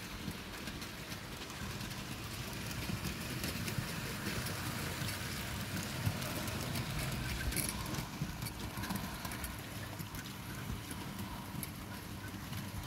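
OO gauge model train running on the track: a Bachmann GNR Atlantic locomotive pulling Hornby four-wheeled GNR coaches, with a low motor hum and a rapid, uneven clicking of the wheels on the rails.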